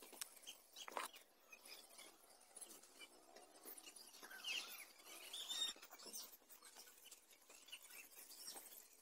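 Near silence, with scattered faint clicks and a few faint high chirps in the middle.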